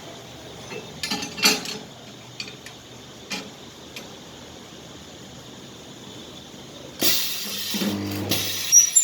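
Electric welding machine firing twice, about seven and eight seconds in: loud crackling hiss with a low hum under it. A few light clicks and knocks come before.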